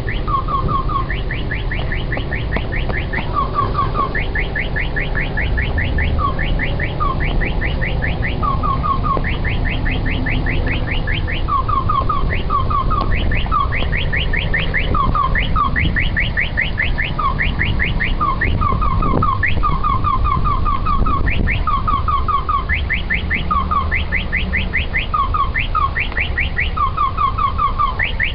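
Car alarm sounding continuously, cycling between runs of rapid high rising chirps and groups of two or three lower rising chirps.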